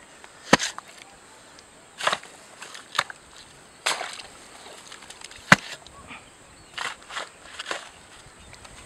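Irregular chopping strikes, one every second or so, some sharp and some with a short tail, over a faint steady high-pitched hiss.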